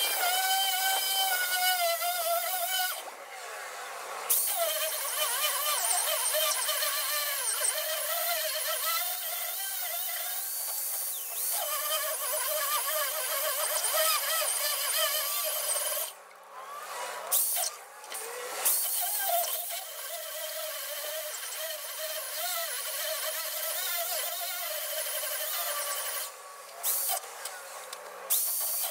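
Corded hammer drill boring out steel ball-joint rivets, running with a wavering whine that rises and falls as the bit loads up in the metal. It stops briefly three times: about three seconds in, around the middle, and near the end.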